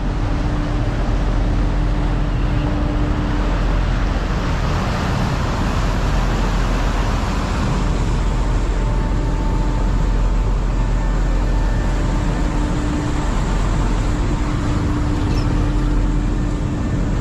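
Steady, loud engine drone with a heavy low rumble and a few faint humming tones over it.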